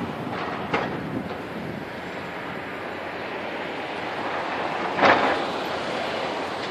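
Wind on the microphone over distant excavators demolishing a brick works, heard as a steady noise. There is a light knock just under a second in and a louder demolition clank about five seconds in.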